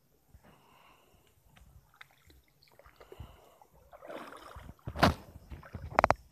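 Vegetable fern (pako) fronds rustling and snapping as they are picked by hand, with scattered small clicks that grow into a louder rustle. A loud knock comes about five seconds in, and a quick run of sharp clicks near the end.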